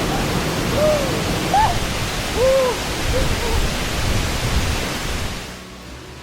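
Steady rush of a waterfall, with a few short rising-and-falling calls over it. The rush fades down about five and a half seconds in.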